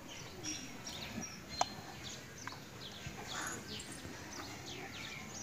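Small birds chirping, with many short, high, falling calls over a faint steady outdoor hiss. A single sharp click comes about a second and a half in.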